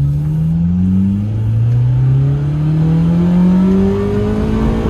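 Suzuki Cultus engine heard from inside the cabin, its note rising steadily as the car accelerates along the road.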